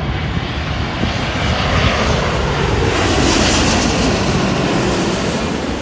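Twin-engine jet airliner on final approach, landing gear down, passing low overhead. The engine noise swells to its loudest about three to four seconds in, with a high whine at the peak, then starts to fade.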